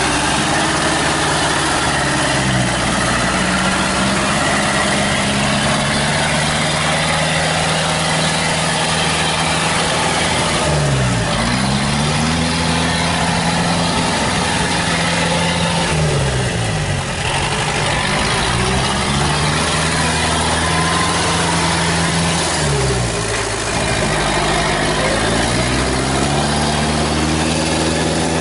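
The engine of a small tracked crawler runs steadily as the machine moves across a muddy field. Its speed dips and recovers about four times.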